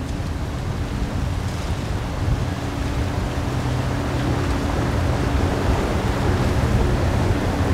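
Motor of a passing rigid inflatable boat running at a steady cruise with a low hum, over the wash of water and wind rumbling on the microphone. The sound grows a little louder as the boat comes nearer.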